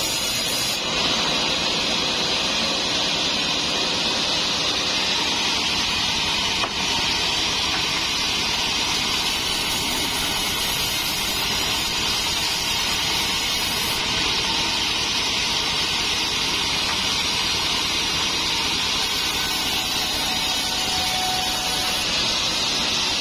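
Large sawmill band saw running steadily and ripping trembesi (rain tree) wood, a continuous hissing whine of the blade in the timber.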